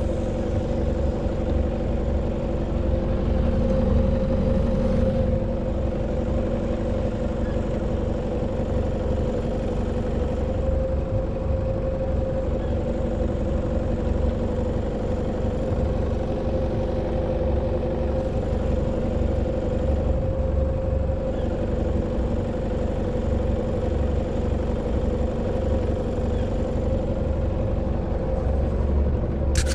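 An Ocqueteau 715 boat's engine idling with a steady, even hum.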